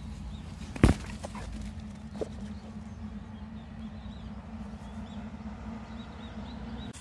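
A single sharp thud of a soccer ball being kicked about a second in, followed by a lighter knock, over a steady low hum; faint high bird chirps come in during the second half.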